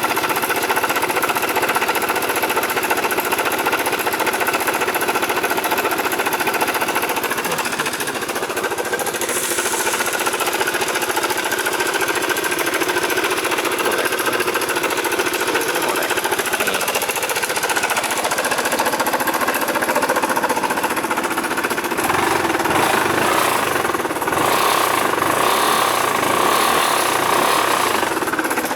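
KYMCO Racing King 180fi single-cylinder four-stroke scooter engine running with a loud, rapid mechanical rattle that gets heavier about three-quarters of the way through. The clatter comes from a broken cam chain tensioner guide letting the cam chain slap.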